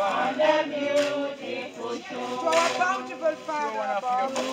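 A group of people singing a hymn together, several voices overlapping.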